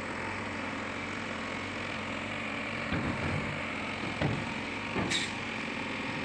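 Heavy diesel engines running steadily, from a JCB backhoe loader and a tipper truck, with a few short knocks about three, four and five seconds in.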